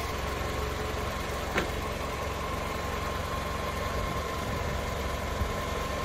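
Toyota Camry ACV36R's 2.4-litre four-cylinder engine idling steadily, heard up close in the open engine bay. A faint steady whine sits over it, and there is a single light click about one and a half seconds in.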